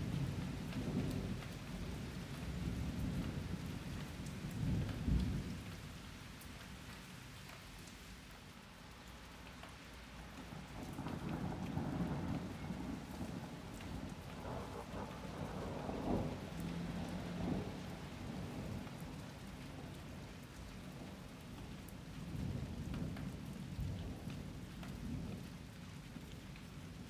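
Thunder rolling in several long, low rumbles over steady rain, with scattered drops ticking; the loudest rumble comes about halfway through.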